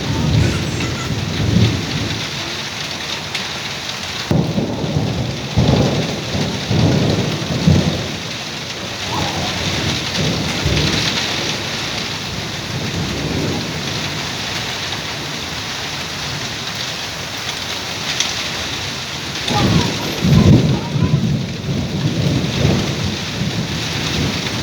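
Thunderstorm: heavy rain falling steadily, with thunder rumbling in rolls near the start, from about four to eight seconds in, and again about twenty seconds in.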